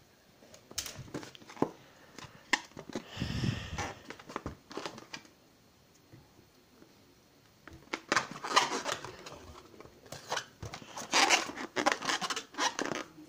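Hands handling a small rubber balloon and a thin wooden skewer pressed against it: irregular rubbing and scratching noises in short bursts, with a quiet spell in the middle.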